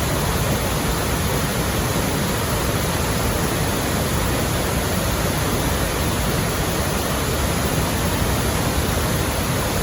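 Wells Falls, a waterfall seen close up, pouring with a constant, even rush of water.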